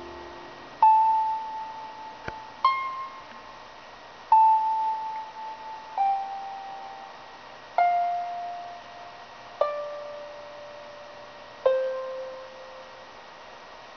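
Concert harp playing slow single plucked notes, seven in all, about one every two seconds, each left to ring and fade, mostly stepping down in pitch as the piece closes. Steady hiss underneath from the recording off a television.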